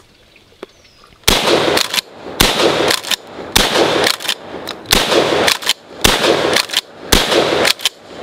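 Stevens 320 12-gauge pump-action shotgun fired six times, about one shot a second, starting about a second in. Each shot rings out briefly and is followed by the clack of the pump being racked.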